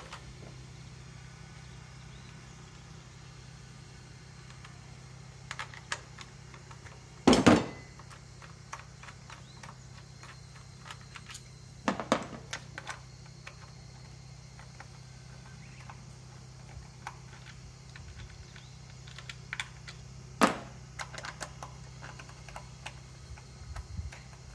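Scattered clicks and clatter of a ratchet wrench and socket extension being worked on the spark plugs of a K6A engine, with a few louder knocks spread through, over a faint steady hum.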